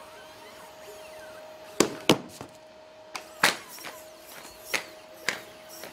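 A series of sharp knocks and thuds, about seven spread over a few seconds, over a faint steady hum.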